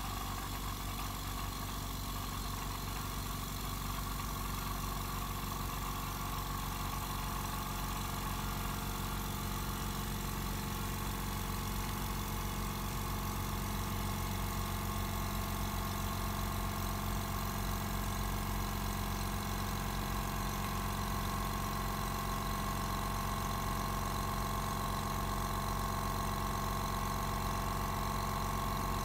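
Stanley DST 100/8/6 silent air compressor, a 750 W, 6-litre unit, running steadily with a low hum and a mid-pitched whine that grows a little stronger and louder in the second half.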